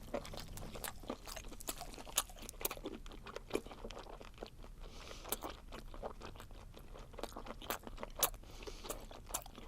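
Close-miked chewing of a mouthful of spicy webfoot octopus, with irregular crisp crunches and wet clicks, several a second.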